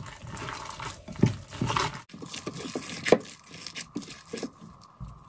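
Disposable-gloved hands squeezing and kneading a wet ground pork mixture with soaked bread and egg: irregular squelching and crinkling of the gloves. A faint steady hum comes in about two seconds in.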